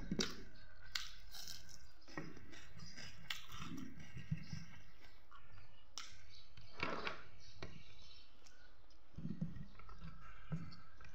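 Close mouth sounds of someone eating rice and chicken curry by hand: wet chewing with lip smacks and small clicks at irregular moments.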